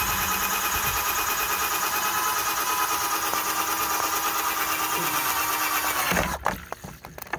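Hyper Tough cordless drill spinning a 1-1/4" hole saw through the side of a plastic bucket full of water, a steady whine with a fast flutter. The drill stops about six seconds in, and water splashes out of the freshly cut hole.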